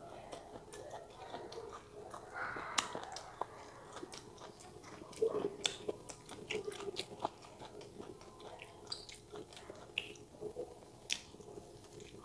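Close-miked chewing of stir-fried chicken gizzard: a run of wet mouth clicks and smacks as tough, chewy meat is worked between the teeth.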